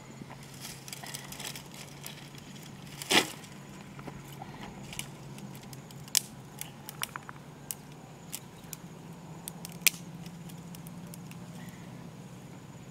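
Dry sticks and twigs being handled and laid onto a pile, with scattered crackles and snaps. The loudest snap comes about three seconds in. A steady low hum runs underneath.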